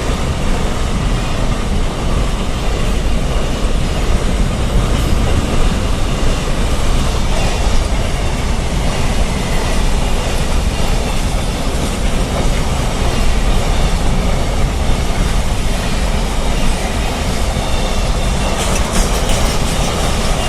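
Train running at speed on the track, a steady loud rush of wheels on rails, with a run of sharp clicks near the end.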